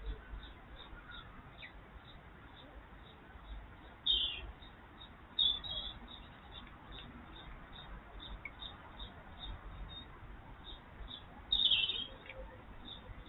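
Small birds chirping, with louder bursts of calls about four, five and a half and twelve seconds in, over a steady run of faint, evenly spaced high ticks.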